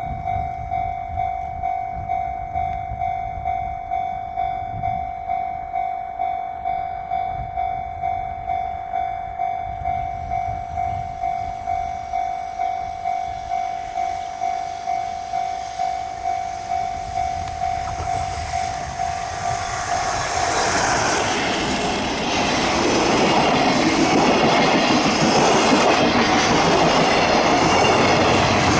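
Japanese level-crossing alarm ringing: one electronic tone pulsing evenly about one and a half times a second. About twenty seconds in, a JR Freight train led by an EF210 electric locomotive runs through, and the rising noise of its wheels and wagons drowns out the bell.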